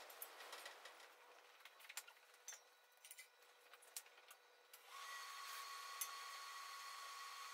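Faint scrapes and light taps of a steel rule against the steel wheel centre and rim while the centre is measured into position. About five seconds in, a steady machine hum with a thin whine starts up.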